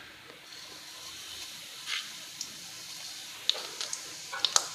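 Black cumin seeds sizzling in hot mustard oil in a pan: a steady frying hiss with a few sharp pops and crackles from the seeds.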